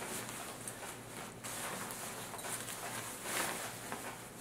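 Nylon sleeping-bag shells rustling and swishing softly as they are handled and smoothed into place, a little louder about three seconds in.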